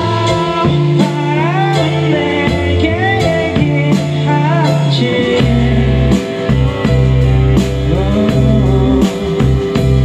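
Rock song playing: a singing voice with electric guitar over steady bass notes, the melody sliding up and down in pitch.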